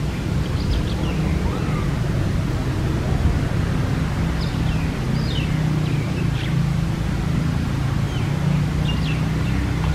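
Steady low outdoor rumble with faint, short high chirps scattered through it, several of them falling in pitch.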